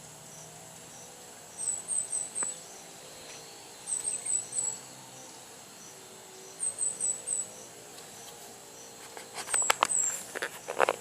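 Very high, short chirps from a small creature calling in quick groups of three or four, each group a couple of seconds apart, over a steady faint rural background. Near the end there are a few sharp crackles and knocks.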